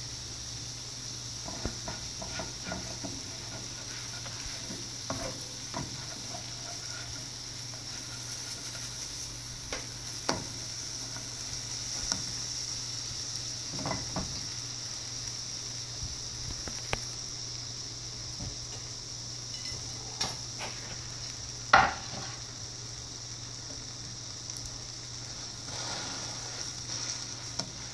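French toast frying in a nonstick pan, giving a steady sizzle. Scattered taps and scrapes of a spatula against the pan sound through it, with one sharp knock about three-quarters of the way through.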